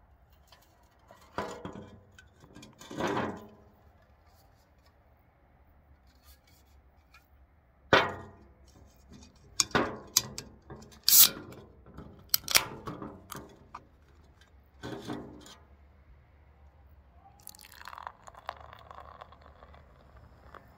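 A can of Deep Bitter Lager is handled and knocked a few times, then its aluminium ring-pull is worked with several clicks, the loudest and sharpest, about eleven seconds in, the can snapping open. From about seventeen seconds the beer pours from the can into a glass with a steady fizzing splash.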